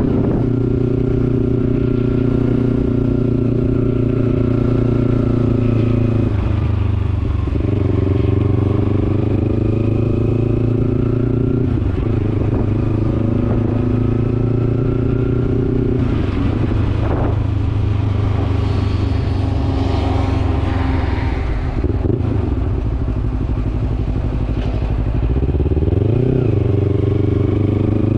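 Kawasaki Ninja 300 parallel-twin engine running on a test ride, a steady note whose pitch dips and climbs back several times as the revs change.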